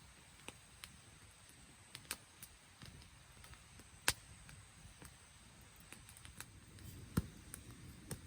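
Irregular sharp clicks and snaps, a dozen or so, the loudest about four seconds in and another near seven seconds, over a faint low rumble.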